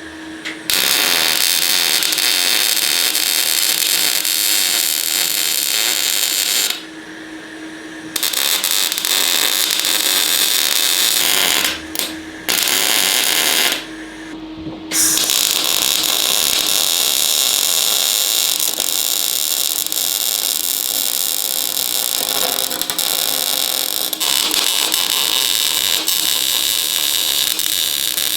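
Welder arcing on the mild-steel battery tray panel in long runs, a loud steady crackling hiss. It breaks off briefly about seven, twelve and fourteen seconds in, leaving a faint steady hum.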